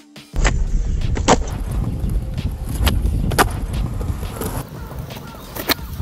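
Skateboard wheels rolling with a steady low rumble that starts about half a second in, with several sharp clacks of the board spread through.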